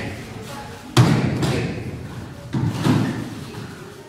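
Heavy thuds of a karate partner embu, stamping feet and bodies meeting the floor: a sharp one about a second in and another just before three seconds, each with an echo.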